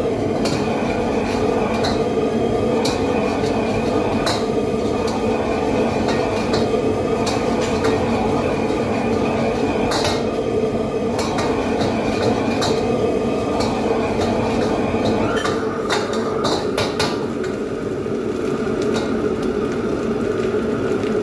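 Commercial gas wok range running with a loud, steady rushing noise, over which a metal ladle repeatedly clanks against a wok as food is stir-fried over high flame; a quick run of clanks comes about three-quarters of the way through.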